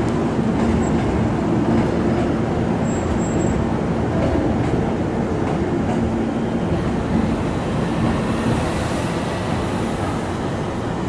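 Hankyu electric train moving along the tracks near the platform ends: a steady rumble of wheels and running gear, with a low hum that comes and goes.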